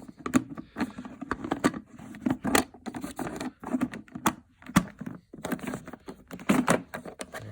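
Hard plastic parts of a Hoover vacuum cleaner being handled: an irregular string of clicks, knocks and scrapes, with one sharper knock near the end.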